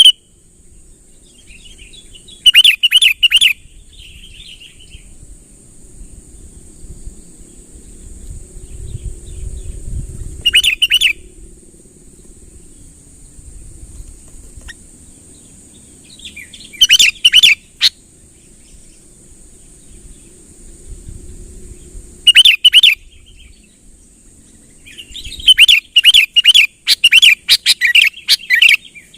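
Sooty-headed bulbul singing its loud, lively song in short bursts of bubbly phrases, five bursts spaced several seconds apart, the last a longer run of repeated phrases near the end. This is the territorial song used to lure rival bulbuls close. A steady high hiss runs underneath.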